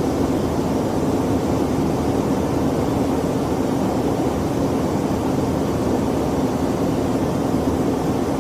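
Aircraft engine running with a steady drone: an even rushing noise with a constant low hum underneath.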